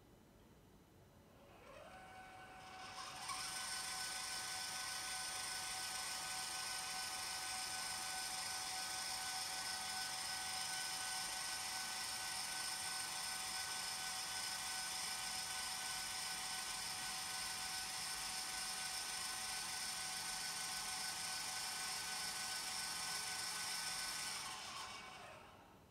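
Losmandy GM811G equatorial mount slewing under its motor drive: a high gear whine that rises in pitch as the motors speed up, runs steady for about twenty seconds, then winds down near the end. Its higher tones are brought out by the echo of a hard-walled room.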